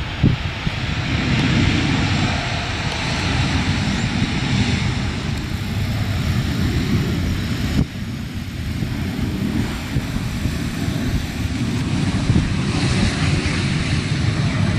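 Jet engines of a Boeing 737-300, its twin CFM56 turbofans, rumbling as the airliner lands and rolls out along the runway, with heavy wind buffeting the microphone. The sound breaks off abruptly about eight seconds in and picks up again as a similar distant jet rumble under the wind.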